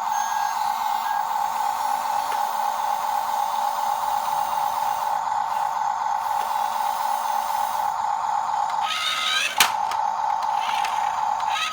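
Steady high whine of a small electric motor running, with hiss above it. About nine seconds in, a short burst of rougher noise ends in a sharp click.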